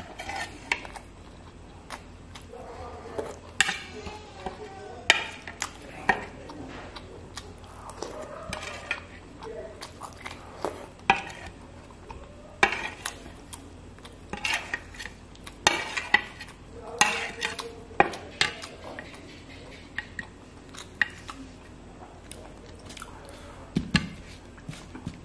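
Close-up eating sounds: chewing fish and rice, with a metal spoon clinking and scraping against the plate in frequent sharp clicks.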